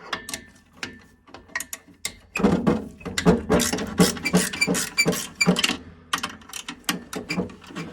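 Socket ratchet clicking in runs of quick strokes as a 13 mm nut is undone, the clicks coming thickest in the middle.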